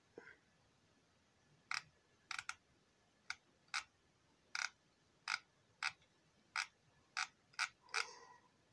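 Computer mouse button clicking about a dozen times, single sharp clicks with a quick pair near the start, spaced roughly half a second to a second apart.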